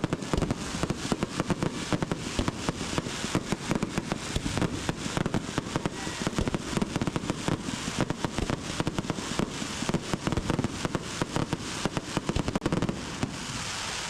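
Aerial fireworks going off in rapid succession: a dense barrage of overlapping bangs and crackles, several every second.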